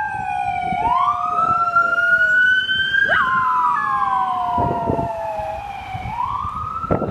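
A siren wailing, its pitch slowly rising and falling. A dog howls along with it in two long falling howls that break off.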